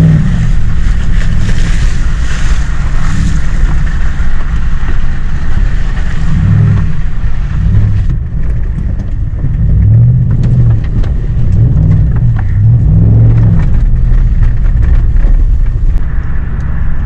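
Off-road pickup truck's engine revving up and down under load over a heavy low rumble, several rises and falls in the second half.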